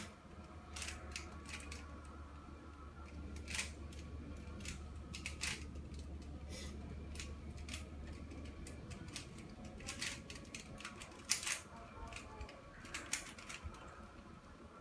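Plastic twisty puzzle of the Rubik's cube kind being turned by hand, its layers giving irregular clicks and clacks. A faint low hum runs underneath and fades out about two thirds of the way through.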